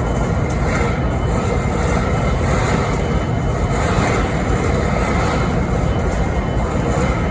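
BNSF 5910 diesel locomotive idling steadily: a continuous low engine rumble with faint steady whining tones above it, the strange idle noise the locomotive is recorded for.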